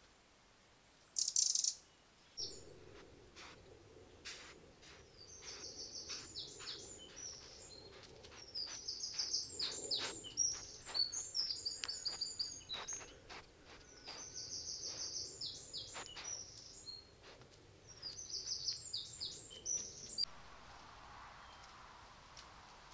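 Small songbirds singing: fast, high trilled phrases and many short, sharp notes, repeated over and over. A single loud high call comes about a second in, and the song stops abruptly near the end.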